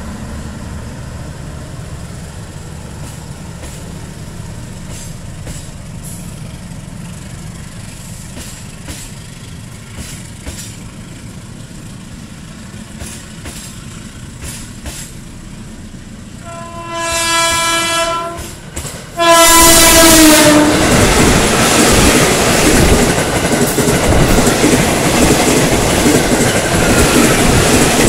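A diesel-hauled passenger train rumbles away over the rails, with scattered clicks of wheels over rail joints. About seventeen seconds in, a train horn sounds twice, roughly a second apart. With the second blast an electric commuter train passes close by, and its loud wheel-on-rail noise fills the rest.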